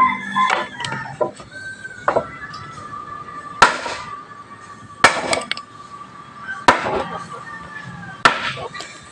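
Wood being chopped with a blade: five sharp chops, about one every one and a half seconds.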